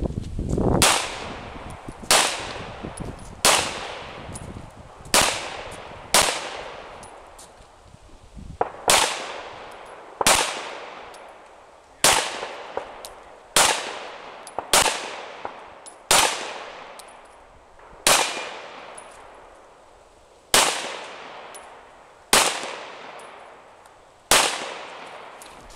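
Gunshots fired one at a time, about sixteen, spaced one to two seconds apart. Each shot has a long decaying echo.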